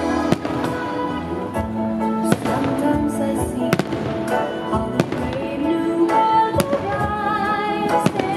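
Fireworks display: sharp bangs of shells bursting overhead, about one a second and irregularly spaced, over festive music playing throughout.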